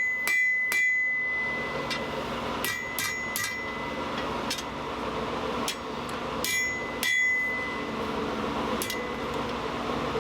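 Hammer blows on a hot steel bar lying on an anvil, each strike followed by a short high ring. A quick run of about three blows a second opens it, then slower, irregular blows follow as the bar is straightened by hammering on its high spots. A steady low hum runs underneath.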